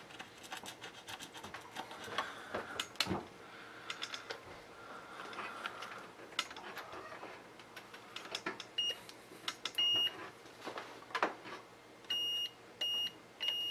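Scattered clicks and knocks of objects handled on a workbench, then from about nine seconds in a series of short, high electronic beeps, all at one pitch and unevenly spaced.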